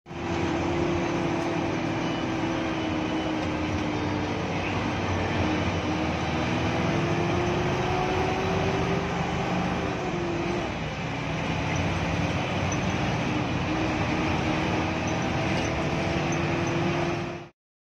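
Hino AK8 bus heard from inside its cab while driving in heavy rain: a steady engine drone with a whine that drifts slightly up and down in pitch, over a dense hiss of rain and tyre spray. It cuts off suddenly near the end.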